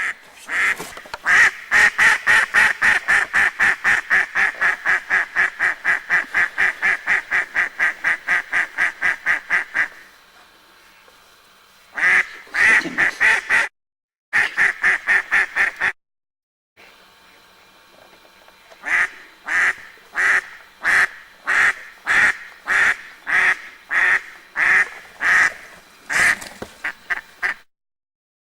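Live decoy hen duck quacking in long runs of calls, the series a calling duck uses to draw in drakes. The calls come fast, about four or five a second, then after a pause in shorter runs, and later slower, about two a second.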